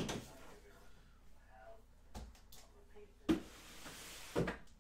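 A few sharp knocks with a short stretch of rustling about two-thirds of the way through, as trading-card boxes and packs are handled on a table.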